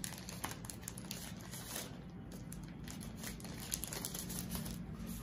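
Thin translucent packaging wrapper crinkling and rustling in the hands as a smartwatch charging cable is pulled out of it, with scattered faint crackles.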